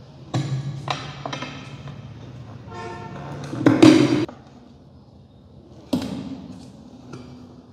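A motorcycle tyre being forced onto a KTM RC 200 alloy wheel by hand and foot. The rubber bead rubs and squeaks against the rim, with knocks and thumps as it is pressed down; the loudest comes about four seconds in, and one more sharp knock follows about two seconds later.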